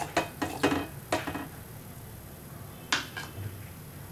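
Metal spoon stirring jaggery into water in a metal pot, clinking and scraping against the pot several times in the first second and a half, with one more clink about three seconds in. The jaggery is being dissolved to make syrup.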